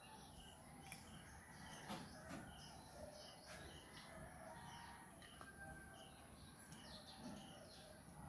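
Near silence: faint outdoor ambience with a bird chirping steadily, about two short high notes a second.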